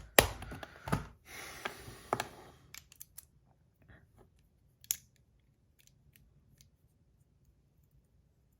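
Small hard parts handled by hand: a run of sharp clicks and rubbing in the first three seconds, then a few faint clicks with one sharper click about five seconds in.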